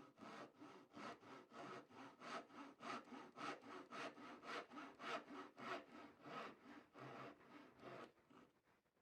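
Hand saw cutting wood in a steady rhythm of strokes, about three a second, stopping near the end.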